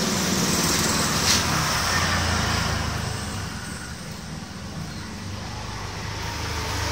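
A motor vehicle engine running in the background, fading through the middle and growing louder again near the end.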